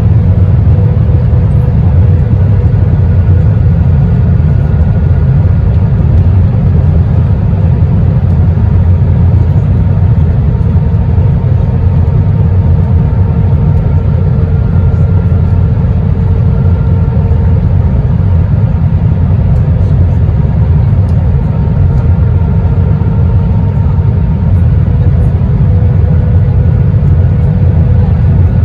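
Cabin noise inside an Airbus A321-131 in flight: a steady, loud rumble of airflow and its IAE V2500 engines, with faint engine tones that fade in and out.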